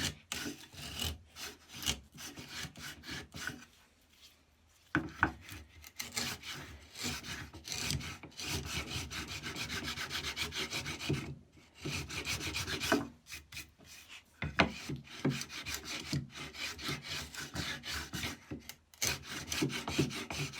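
Record No. 71 router plane's freshly sharpened blade scraping through wood in repeated short strokes, with a few brief pauses between passes.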